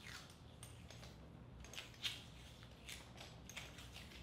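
Masking tape being pulled off the roll and wrapped around a nylon rope end: a few short, faint peeling sounds, the loudest about two seconds in.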